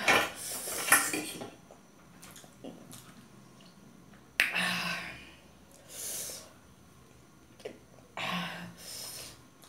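A woman sniffing and huffing out sharp breaths, her mouth burning from chilli-spicy food, in four short bursts, the last about eight seconds in as she blows her nose into a cloth.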